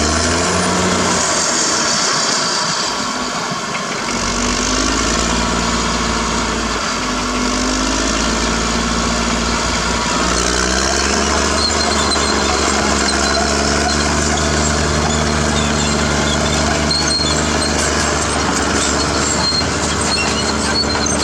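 Caterpillar D6R crawler bulldozer's diesel engine running under load, its revs dropping about two seconds in, then rising and falling before settling to a steady pitch. A thin high squeal comes and goes above the engine.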